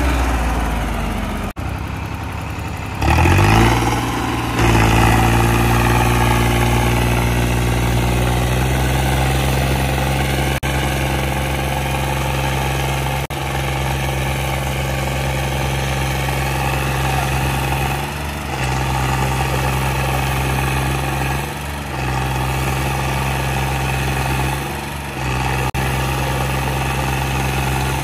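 Diesel tractor engines running hard under heavy load as two tractors pull against each other in a tug-of-war. The engine note rises about three to four seconds in, then holds a steady, strained pitch, with a few brief dips in the later half.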